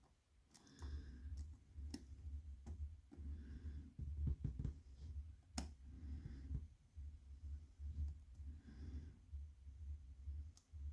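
Lock pick and tension wrench working the pins of a pin-tumbler challenge lock: a handful of sharp, scattered metallic clicks over low handling rumble.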